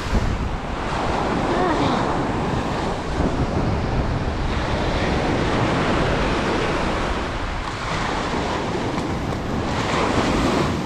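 Surf breaking and washing up the beach, a steady rushing that swells and eases, with wind buffeting the microphone.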